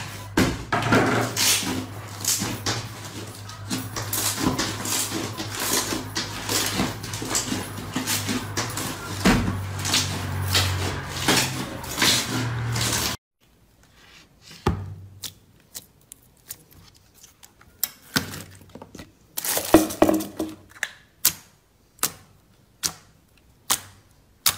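Hands squeezing and kneading a large mass of green slime: dense, crackly squelching with frequent sharp clicks over a steady low hum. About halfway through the sound cuts to a quieter clip: hands pressing clear blue slime, giving a string of separate sharp pops and clicks as its air pockets are pressed.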